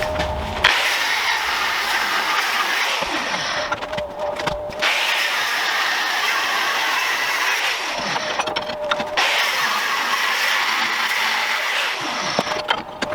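Angle grinder cutting steel plate: three long passes of harsh hiss as the disc bites into the metal, with the motor's steady whine heard alone in the short pauses between cuts.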